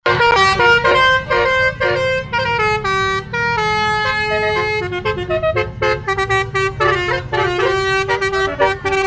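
Telolet horn, a multi-tone musical air horn, playing a fast tune of short notes that step up and down in pitch over a steady low rumble.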